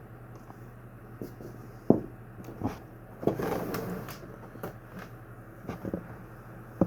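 Hard objects being handled: scattered knocks and clicks, the loudest about two seconds in, with a scraping rustle around the middle, over a steady low hum.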